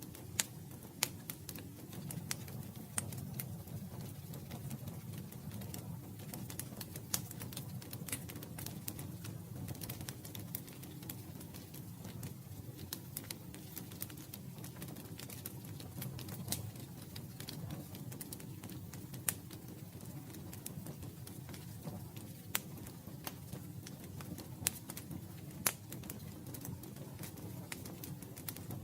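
Wood fire burning: irregular crackling with frequent sharp pops, some louder than others, over a steady low rumble of the flames.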